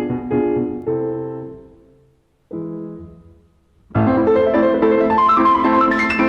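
Background piano music: sustained chords die away to a pause, a soft chord sounds, then about four seconds in a run of quick rising notes begins.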